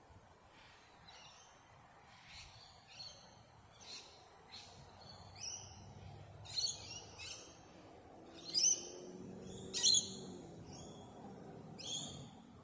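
A bird calling in a run of short, sharp chirps, irregularly spaced, getting louder toward the end, the two loudest a little past the middle.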